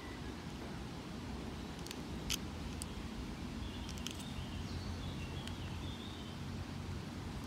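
A few short, sharp clicks as a Mercedes key fob is worked at the car, the loudest a little over two seconds in, over a steady low outdoor rumble. Faint bird chirps come in the middle.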